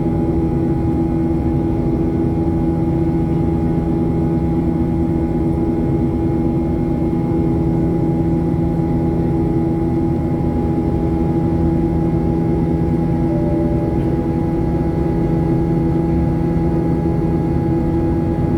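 Steady cabin drone of a Boeing 737-700's CFM56-7B jet engines during the climb after takeoff, heard from inside the cabin: a constant low rumble with several fixed humming tones and no change in thrust.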